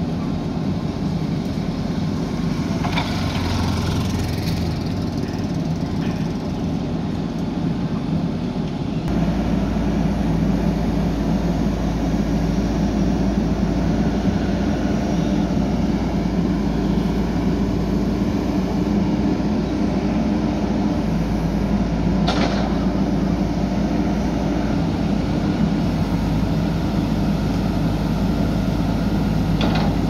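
JCB 3DX backhoe loader's diesel engine running steadily while it works its hydraulic backhoe arm, louder from about a third of the way in. A couple of sharp knocks in the second half.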